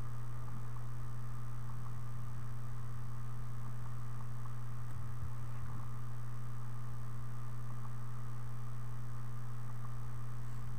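Steady low electrical hum with a faint even hiss underneath, unchanging throughout.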